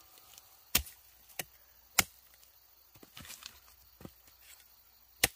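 A hand tool chopping: sharp strikes about three-quarters of a second in, just after, at two seconds and near the end, with a few lighter knocks in between.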